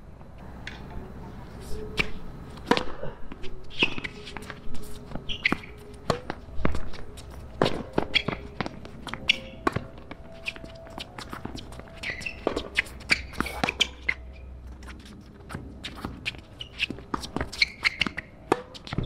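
Tennis rally on a hard court: repeated sharp pops of racket strings striking the ball, ball bounces on the court, and players' footsteps.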